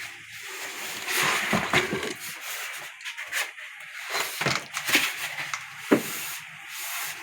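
Rustling and handling of paper and packaging from a keyboard's box, with scattered light clicks and knocks, the sharpest about six seconds in.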